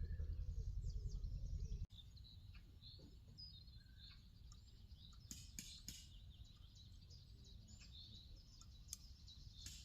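Small birds chirping and twittering. A low rumble runs under them for the first couple of seconds and cuts off abruptly, leaving quieter background with a few sharp clicks.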